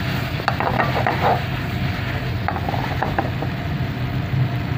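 Spatula scraping and clicking against a stainless steel pan while stirring beef and tomatoes as they sauté, in irregular strokes, busiest in the first second and a half, over a steady low hum.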